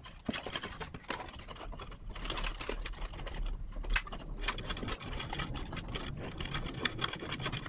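Thin wire being poked and jiggled through a hole in a car's firewall sheet metal, making irregular light clicks and scrapes against the metal.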